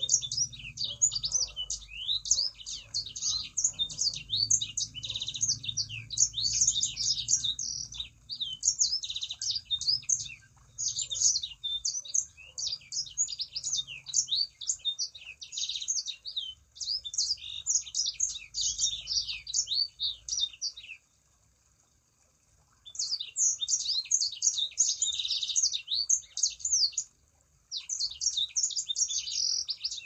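A songbird known in Indonesia as the sanger, singing a fast, unbroken twittering chatter of high chirps and quick glides. It stops for about two seconds a little past the middle, then picks up again with a short break near the end.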